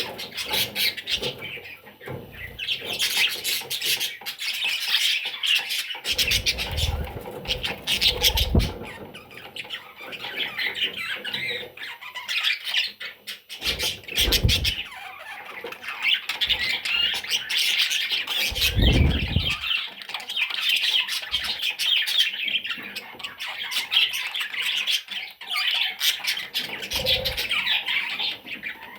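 Baby budgerigars (budgie chicks) squawking and chattering almost without pause, a raspy, scratchy chorus with small rustles and clicks, broken by a few dull thumps.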